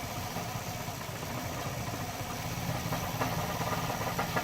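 Mercedes 190E 2.0's four-cylinder engine running rough at idle on natural gas, a poorly set gas idle that is being tuned with the idle screw. A couple of light clicks sound over it about three seconds in and again near the end.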